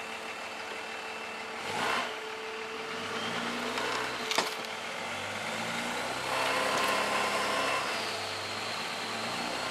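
Pickup truck engine revving under load as it tries to drag a car by a tow strap, its pitch rising in steps and swelling, with a couple of sharp clunks. The towed car's front wheels are not rolling.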